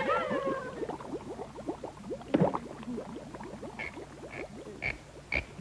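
Cartoon underwater bubbling sound effect: a steady stream of quick, falling bloops. There is a louder knock about halfway through, and a run of short high pips about every half second near the end.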